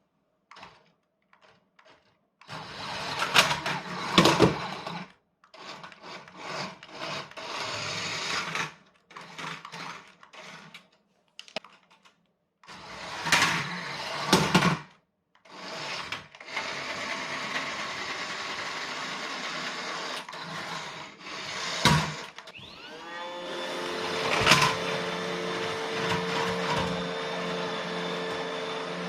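Radio-controlled toy car's electric motor whirring in short stop-start bursts, with a couple of sharp knocks late on. Then a Roomba robot vacuum's motor spins up with a rising whine and runs with a steady hum.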